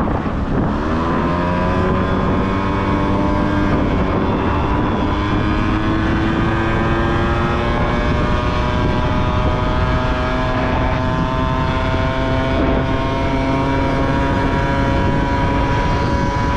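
Honda Topic scooter's small two-stroke engine pulling under throttle while riding: its pitch climbs quickly in the first couple of seconds, then holds steady and creeps slowly higher as the moped gathers speed. The exhaust has the buzzy, farting note the rider complains about, and the moped is slow to pick up speed.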